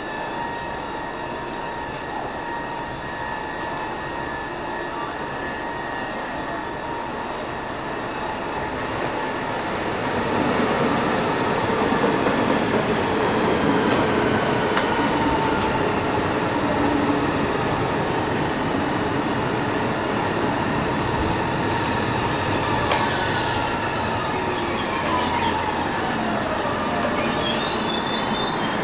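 Stockholm commuter train, an X60 electric multiple unit, arriving at an underground station platform. Its noise grows louder about ten seconds in, its motor whine falls in pitch as it brakes, and a brief high brake squeal comes near the end as it stops.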